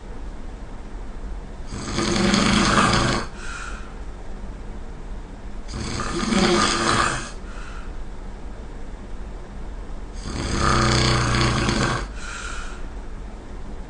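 A person snoring: three long snores about four seconds apart, each followed by a shorter, fainter breath.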